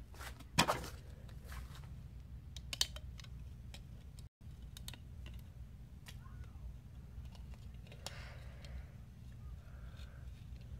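Scattered clicks and taps from a handheld phone being handled close to its microphone, over a steady low hum. The sound cuts out completely for a moment about four seconds in.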